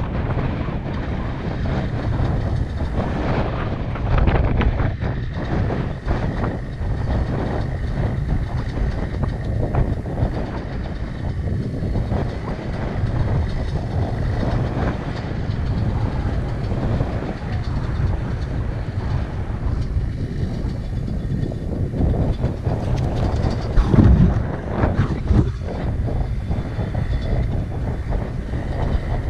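Dirt bike engine idling close by, a steady rumble mixed with wind buffeting the microphone, with a couple of louder swells near the end.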